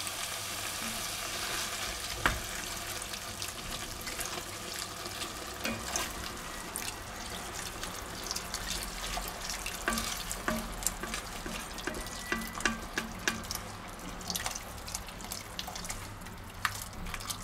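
Broth poured in a steady stream from a plastic measuring jug into a hot pot of browned vegetables, splashing and sizzling. A wooden spoon stirs, knocking against the pot now and then.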